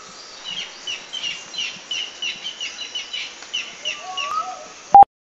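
Bird chirps repeating about three times a second, with a rising whistle-like call near the start and again near four seconds in. A short, loud beep-like tone cuts in about five seconds in.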